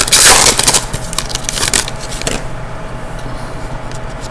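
A hockey card pack's foil wrapper crinkling and tearing as it is opened, for about two seconds, then stopping abruptly.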